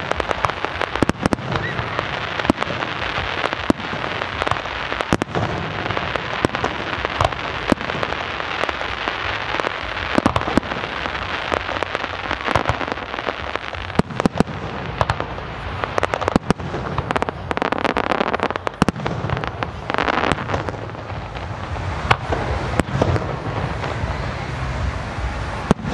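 Fireworks display going off: a dense, unbroken run of sharp bangs, several a second.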